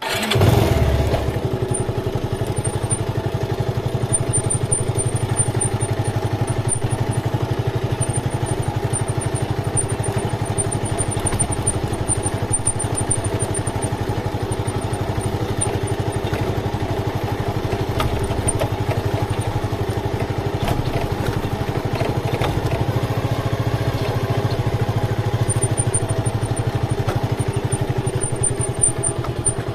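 Motorcycle engine running at a steady pitch while it is ridden, cutting in suddenly at the start.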